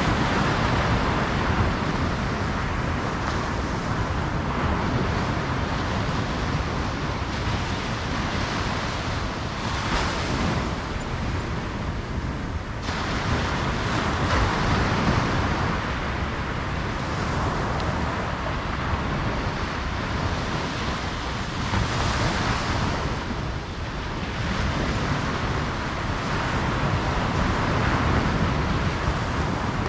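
Ocean surf on a beach: waves breaking and washing in, the rushing noise swelling and easing every few seconds.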